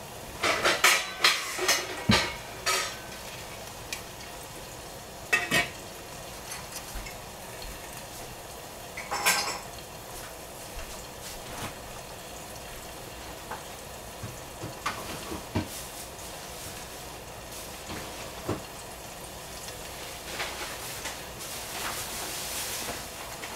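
Kitchenware clinking as a metal spoon, a glass jar and a stainless steel saucepan lid are handled: a quick run of sharp, ringing clinks in the first three seconds, then single clinks around five and nine seconds in. A few light ticks follow, and a faint hiss swells near the end.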